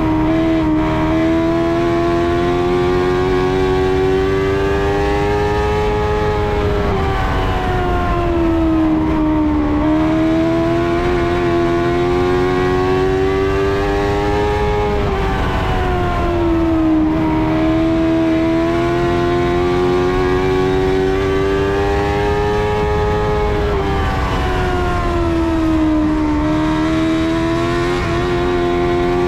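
In-car sound of a dwarf race car's motorcycle engine under racing load, its pitch climbing steadily down each straight and dropping off into each turn, about three laps' worth of rise and fall, over road and wind noise.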